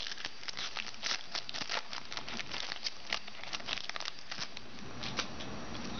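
Crinkling of a foil trading-card pack wrapper being handled, a dense run of crackles that thins out after about four and a half seconds.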